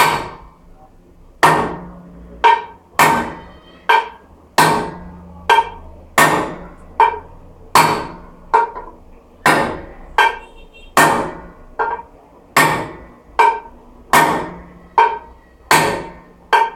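A hammer striking metal at a steady pace, about one blow every three-quarters of a second, each blow ringing briefly.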